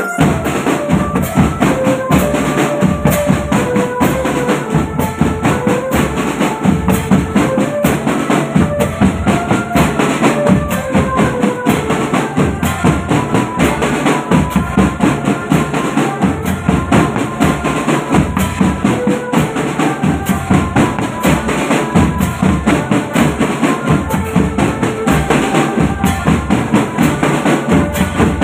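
A marching drum band playing: bass drums, snare drums and clashed cymbals beating a steady, fast march rhythm, with a melody of held notes carried above the drums.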